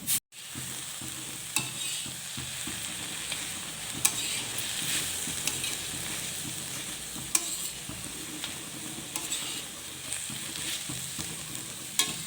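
Thick date-and-raisin paste frying in ghee in a kadhai, sizzling steadily as it is stirred, with a few sharp clicks against the pan. The paste is being slowly roasted on medium heat until it dries out.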